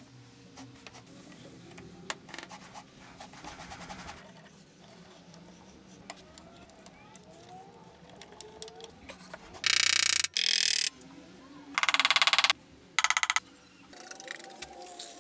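A small handheld power tool runs in three short bursts of rapid buzzing, the first about ten seconds in and lasting about a second, the next two shorter.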